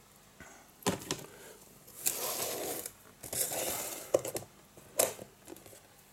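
Clear plastic tub being handled on a table: a couple of knocks about a second in, two longer scraping rustles in the middle, then sharp clicks near the end.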